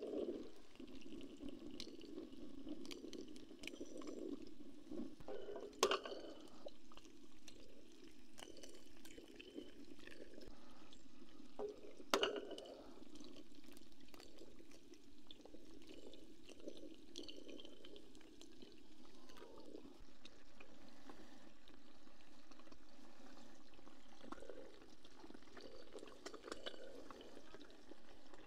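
Water gurgling and sloshing steadily, with two sharp clicks about six seconds apart.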